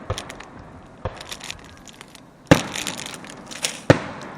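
Aerial fireworks bursting: four sharp booms, the loudest about two and a half seconds in, each dying away, with crackling in between.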